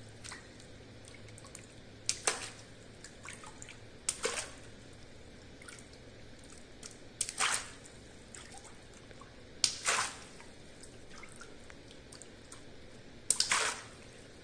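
Water balloons popped one by one with a pin: five sharp pops, each with a short splash of released water, spaced about two to three seconds apart, with small drips and ticks of water between them.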